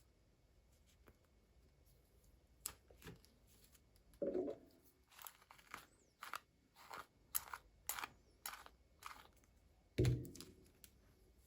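Toy packaging being handled and opened by hand: a run of short clicks, crinkles and tearing sounds, with two dull thumps, one about four seconds in and one near the end.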